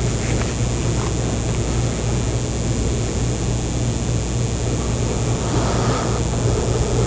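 Steady low hum with an even hiss, and a couple of faint paper rustles near the start.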